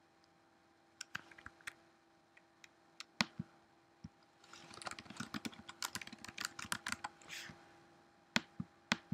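Typing on a computer keyboard. A few scattered clicks come in the first few seconds, then a quick run of keystrokes from about four and a half to seven and a half seconds in, and two sharp clicks near the end, over a faint steady hum.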